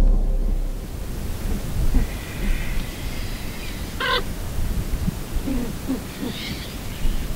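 Outdoor ambience with a steady wind-like hiss, faint chirps, and one short, sharp bird call about four seconds in.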